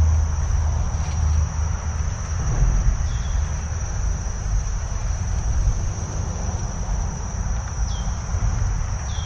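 Insects chirring in a steady high-pitched drone over a continuous low rumble, with a few short high chirps about three seconds in and again near the end.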